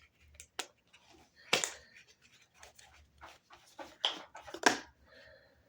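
Packaging of a bar of handmade soap being pulled open by hand: a run of short, sharp crinkling and tearing sounds, the loudest about a second and a half in and again near the end.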